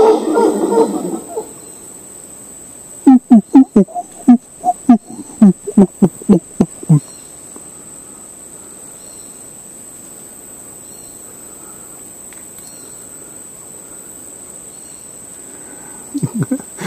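Howler monkeys howling, fading out about a second in, then a quick run of about a dozen short, deep grunting calls. After that comes a steady insect buzz from the forest.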